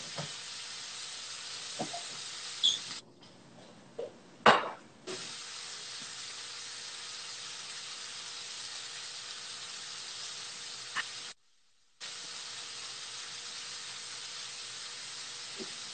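Chicken frying in olive oil in a pan, a steady sizzle, with a few light clinks of utensils in the first few seconds.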